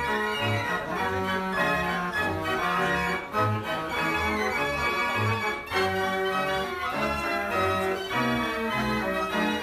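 89-key Marenghi fair organ playing a dance tune: pipe melody and chords over bass notes alternating in a steady beat.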